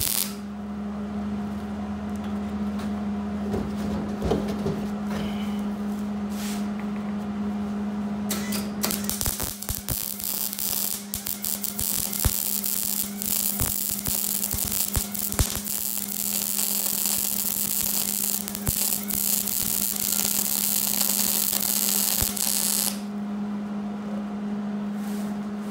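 Wire-feed (MIG) welder laying a bead on steel: the arc crackling and sputtering, densest from about nine seconds in until shortly before the end, over a steady electrical hum.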